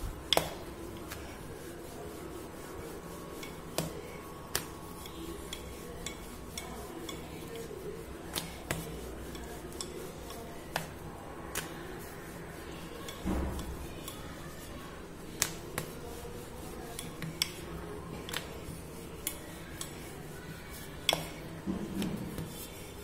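Wooden rolling pin rolling out stuffed dough on a glass plate, with irregular sharp clicks and knocks as the pin and hands strike the glass.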